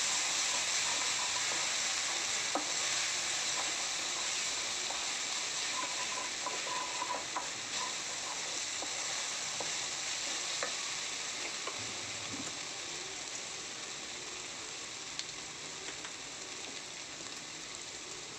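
Grated potato, onions and peanuts frying in oil in a metal kadai on a lowered flame: a steady sizzle that slowly dies down, with a spatula stirring through it and a few light taps against the pan.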